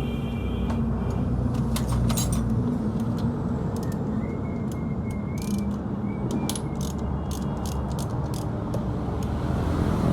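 Steady low vehicle rumble with a scattering of short metallic clicks and clinks, like tools or parts being handled.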